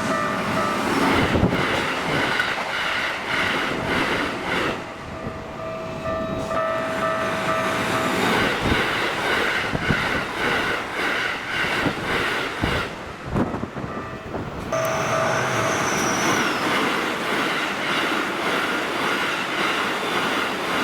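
Keikyu electric trains passing through a level crossing at high speed: wheels clatter over the rail joints under a heavy rumble, while the crossing's warning bell keeps ringing its repeated electronic clang.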